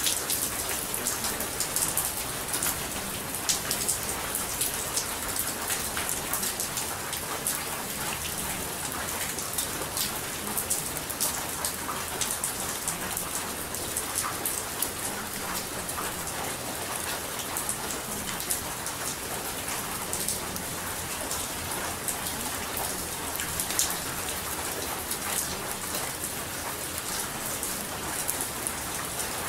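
Steady rain falling, a continuous hiss dotted with the sharp ticks of individual drops.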